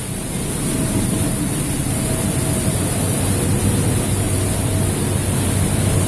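Centrifugal metal-dust extractor fan running steadily, air rushing through its galvanized sheet-metal ducting, with a low steady hum under the rush.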